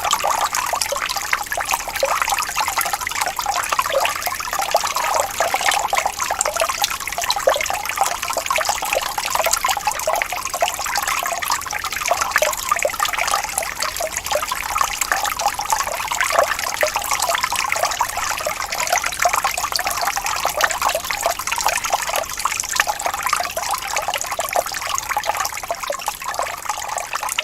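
Falling water splashing and trickling steadily, a dense, even patter of small splashes with no pauses.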